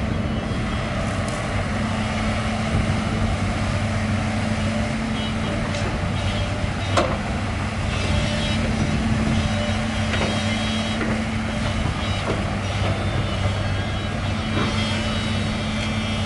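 Liugong 922D hydraulic excavator's diesel engine running steadily as the machine works, with scattered light knocks and one sharp metallic knock about seven seconds in.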